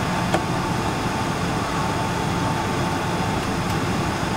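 Steady cabin noise inside a Boeing 777-300 while it taxis, from the engines at idle and the air conditioning, with a thin steady whine over it. A single short click comes about a third of a second in.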